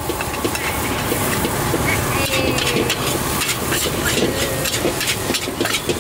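Metal spatula scraping and tossing fried rice in a large steel wok, many quick strokes against the pan over a steady frying hiss.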